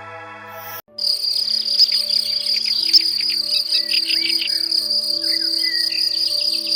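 Soft synthesizer music ends under a second in, giving way to a continuous high-pitched insect trill, cricket-like, with short bird chirps and a warbling call mixed in.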